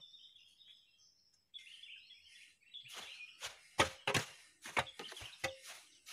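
A wooden pole ramming down into wood shavings in a steel drum, a quick run of thuds about three a second starting about halfway through, packing the shavings tight for charcoal-making. Birds chirp in the background before the thuds begin.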